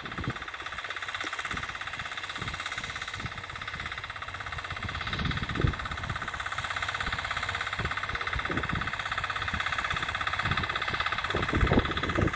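Walk-behind tractor engine running steadily under load while it pulls a ridger through the soil, growing slightly louder as it comes closer. A few low thumps come through, the loudest about five and a half seconds in and near the end.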